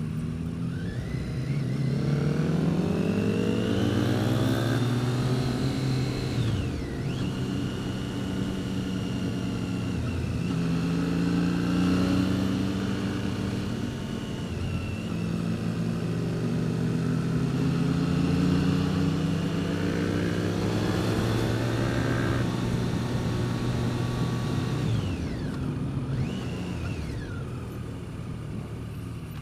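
2014 Triumph Street Triple R's 675 cc inline-three engine under way, pulling up through the revs, rolling off and pulling again. The pitch climbs over the first few seconds, drops about seven seconds in, rises again around twenty seconds in and falls back near the end.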